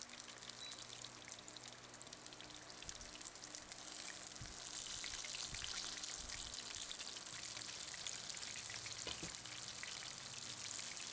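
Flour-coated chicken pieces shallow-frying in vegetable oil, sizzling steadily; the sizzle grows louder about four seconds in, with a few soft knocks.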